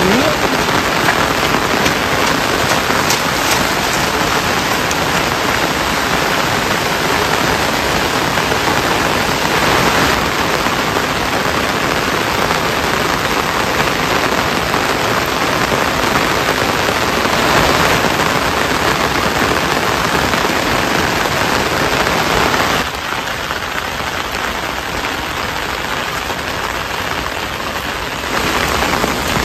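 Heavy rain falling steadily, a dense even hiss. It drops in level for about five seconds near the end, then comes back.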